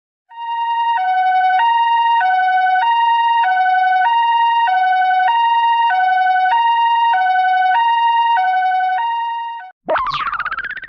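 Two-tone hi-lo siren sound effect of the Japanese ambulance kind, alternating evenly between a higher and a lower tone about eight times, then cutting off. Near the end a short, springy sound effect sweeps up in pitch.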